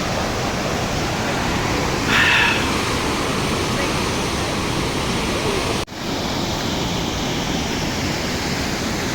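Sahasrakund waterfall close by: a steady, even rush of heavily falling water. The sound breaks off for a moment about six seconds in.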